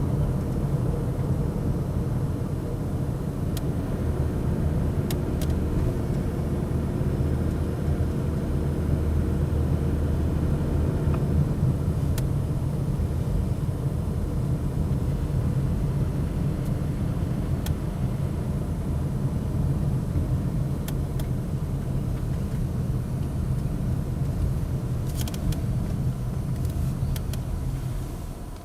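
Toyota 2GR-FE 3.5-litre V6 running steadily. The note is a little stronger until about eleven seconds in, then eases, and a few scattered sharp ticks sound through it. This is a recording of the engine knock that the owner complains of and that Toyota considers normal.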